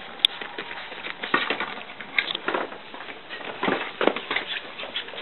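Puppies scrambling and tussling over a plush toy in a cardboard box: many small scratches, taps and rustles of paws on blanket and cardboard, with a brief high squeak about two seconds in.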